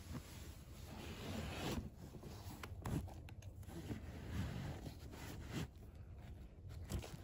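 Hands rummaging through a canvas tote bag: mesh, plastic and fabric pouches rustling and rubbing against each other and the canvas, with a few light knocks.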